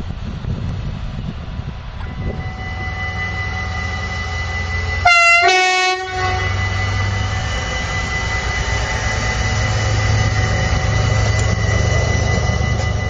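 Train rumbling past, then a locomotive's two-tone horn about five seconds in: one short high note followed by a lower one. After it the steady drone of a diesel locomotive engine runs on.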